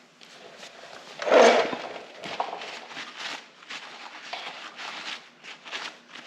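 Small compressor parts being handled on a workbench: a loud clatter about a second in, then scattered light clicks and knocks.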